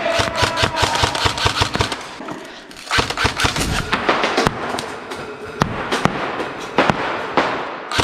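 Airsoft guns firing in rapid strings of shots, a short lull about two seconds in, then another rapid string, and a few scattered single shots near the end.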